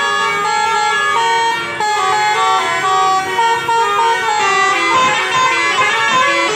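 Tour buses' basuri telolet horns playing tunes, several horns overlapping in a run of short held notes that step up and down in pitch.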